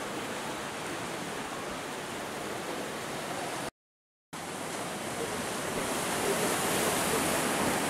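Sea surf breaking and washing over shore rocks, a steady rushing hiss. It drops out completely for about half a second near the middle, then comes back with a brighter hiss toward the end.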